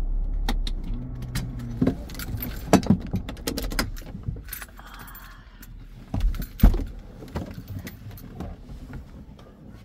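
Car keys jangling and clicking inside a parked car, with scattered knocks, the loudest about two thirds of the way through. Under them, a low engine rumble dies away after about four seconds.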